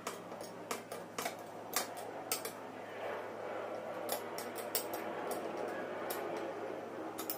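Irregular small clicks and taps of compressor parts being handled during reassembly of a PCP air compressor, over a faint steady hum.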